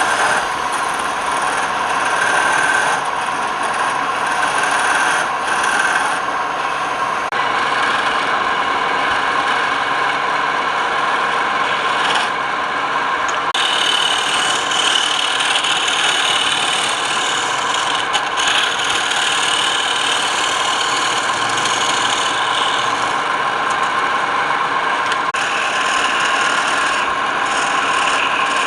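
Wood lathe running while a tool works the spinning wood, a steady scraping, rasping sound that shifts in tone a few times.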